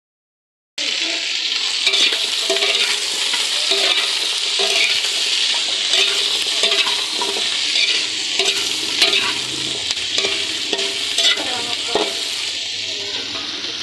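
Raw chicken feet sizzling in hot oil in a steel wok, stirred with a metal spatula that scrapes and clinks against the pan again and again. The sizzle starts just under a second in and keeps steady.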